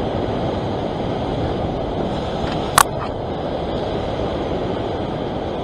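Sea surging and washing over rocks with wind on the microphone, a steady rushing noise; a single short sharp click a little before the middle.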